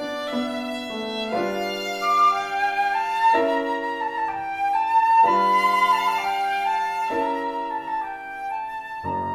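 An instrumental trio playing a slow melody that climbs and falls over held chords, the chords changing about every two seconds.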